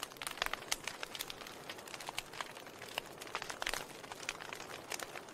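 Wood fire burning in a fireplace, crackling: irregular sharp pops and snaps, several a second, over a soft hiss of the flames.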